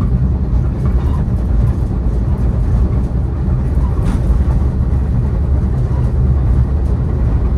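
Caltrain commuter train running at speed: a steady, loud rumble of the moving train and its wheels on the rails.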